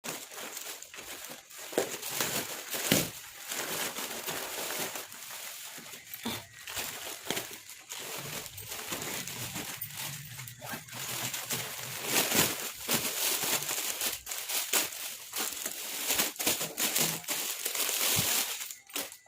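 Parcel packaging crinkling and crackling in an irregular, continuous run as it is handled and opened by hand.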